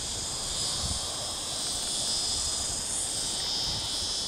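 A steady high-pitched chorus of insects droning without a break, with an uneven low rumble underneath.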